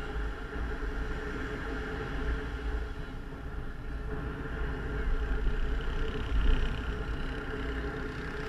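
Sport quad ATV engine running at a fairly steady speed, with a deep rumble underneath.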